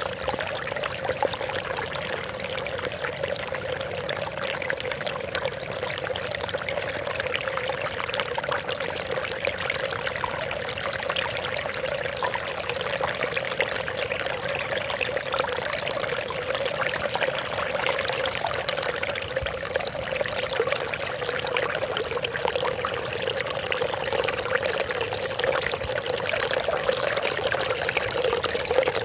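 Water trickling and splashing in a steady, unbroken flow, with many small splashes.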